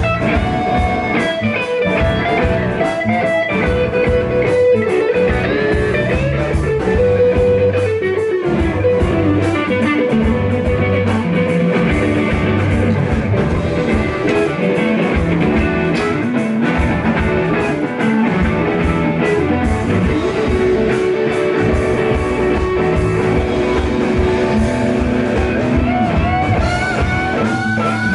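Live blues-rock band playing an instrumental passage: an electric guitar plays held lead notes and bends over bass guitar and a drum kit, with no vocals.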